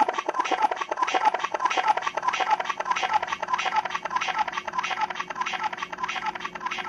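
A DJ controller playing a rapid, stuttering chopped sample, about five or six short hits a second, with no beat underneath, slowly getting quieter.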